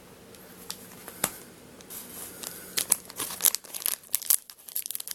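Foil booster pack wrapper crinkling and tearing as it is worked open. Scattered crackles at first, turning into a dense run of crinkles about three seconds in.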